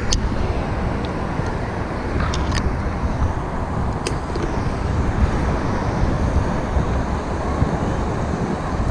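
Steady rumble of road traffic, with a few light clicks; the first, right at the start, is a putter striking a golf ball.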